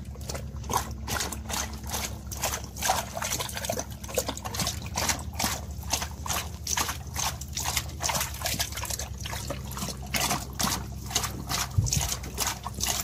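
Great Dane drinking from a plastic bucket with its whole muzzle submerged, lapping and sloshing the water in quick, regular splashes, about three to four a second.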